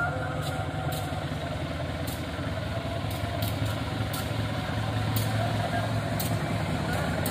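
Diesel locomotive engine running steadily as the passenger train approaches, its low hum growing a little louder near the end.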